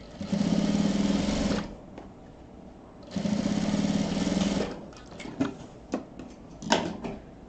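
Sewing machine stitching a straight seam in two runs of about a second and a half each, with a steady hum and a fast, even stitch rattle. Near the end there are a few short clicks as the thread is snipped with scissors.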